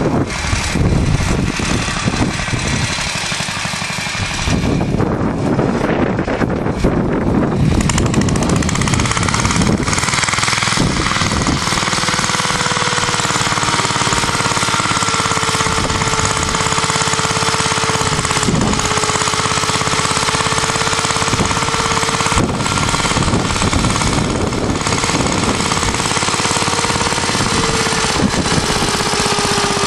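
1947 Clifford Mk1 walk-behind tractor's single-cylinder J.A.P. engine running steadily under load as it pulls a plough through the soil. It grows louder over the first several seconds and then holds steady.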